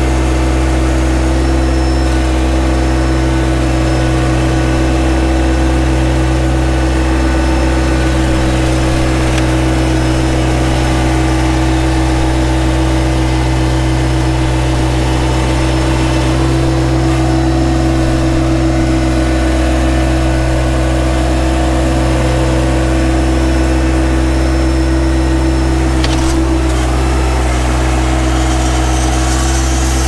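Yanmar compact tractor's diesel engine running at a steady speed, with one sharp knock near the end.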